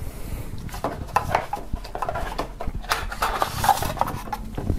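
Paper rustling and scraping in short, irregular strokes as a folded paper sheet is handled and lifted out of a cardboard box.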